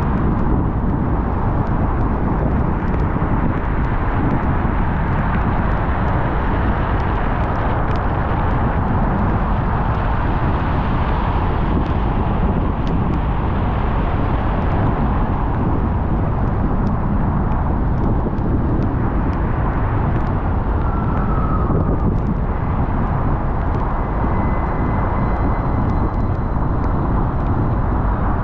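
Steady road noise of a car driving on wet pavement in the rain, with a few faint ticks over it.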